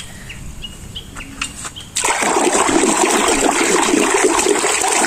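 Running water that starts suddenly about two seconds in and keeps up a steady rush, as a mud-covered plastic toy animal is rinsed clean.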